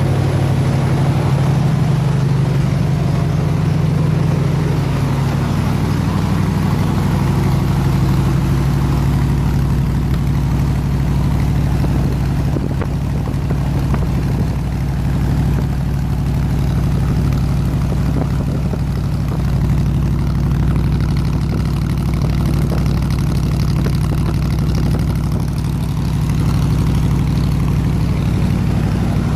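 302 V8 engine driving an air compressor, running steadily at a constant idle-like speed, warmed up to operating temperature.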